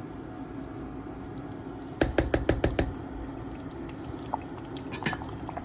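Pot of banga soup cooking on the stove with a steady low bubbling, broken about two seconds in by a quick run of about six sharp knocks of utensil on pot, with a few lighter clicks near the end.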